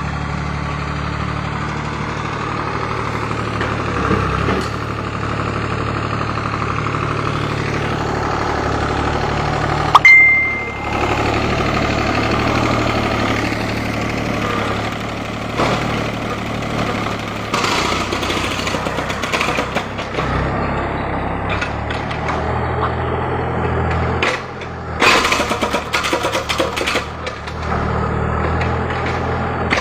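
Yanmar 3TN three-cylinder diesel engine running steadily, now that its no-start fault around the fuel shut-off solenoid has been worked around, its note changing as the machine is operated. A sharp loud bang about ten seconds in is followed by a brief high squeal, and there are bursts of rapid clattering about three quarters of the way through.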